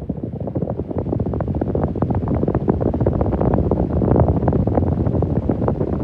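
Schallen 12-inch desk fan running with a rapid, irregular clicking rattle and low rumble from its worn motor bearings, getting a little louder over the first couple of seconds. The blades' airflow buffets the microphone.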